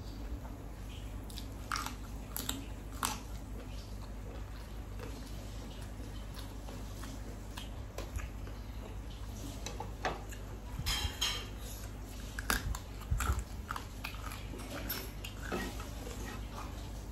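A person chewing and biting crunchy food close to the microphone, with scattered crisp crunches that come thicker about eleven and thirteen seconds in, over a steady low hum.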